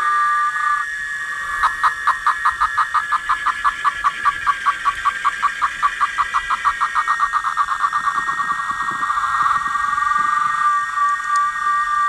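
Cicadas singing in the trees: a steady high drone, with one cicada breaking into a rapid pulsed call, about five pulses a second, that speeds up and runs together into a continuous buzz near the end before settling back into the drone.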